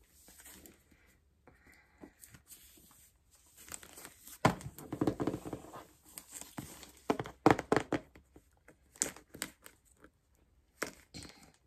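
Gift wrapping paper on a box being handled and torn open: irregular crinkling and ripping, in bursts with short pauses, loudest about halfway through.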